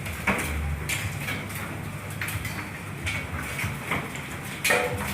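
Hailstorm: a steady hiss of falling hail and rain with scattered sharp clacks of hailstones striking hard surfaces, the loudest near the end.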